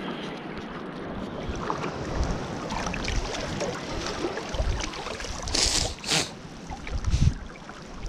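Sea water sloshing and wind buffeting the microphone, with scattered small knocks. Two brief rustles a little past the middle.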